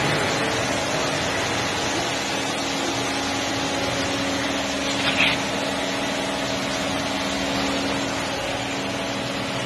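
Steady mechanical hum with a constant low drone, and one short sharp click about five seconds in.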